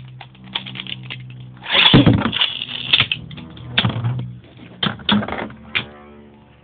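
Two metal Beyblade spinning tops whirring and clashing, with rattling collisions and sharp clacks; the heaviest flurry of hits comes about two seconds in, followed by scattered single clacks.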